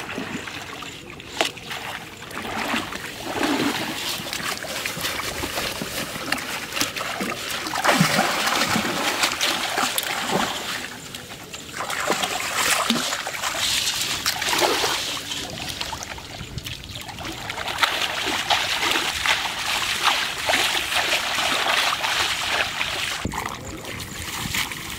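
Shallow water splashing and trickling in irregular surges as hands and legs work through a flooded paddy and a net trap is hauled up.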